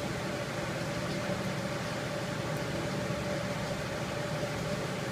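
Steady background machine hum with a faint, constant high whine and no distinct clicks or knocks.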